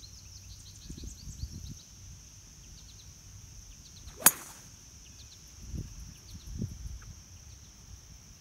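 A golf club strikes a ball off the tee: one sharp crack about four seconds in. Under it, a steady high drone of insects.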